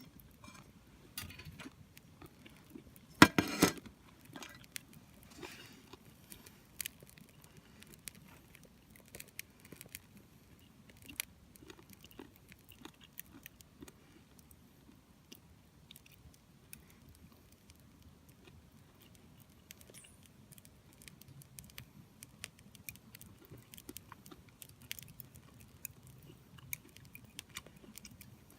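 Small wood fire crackling, with scattered pops and ticks throughout and a louder cluster of knocks about three seconds in.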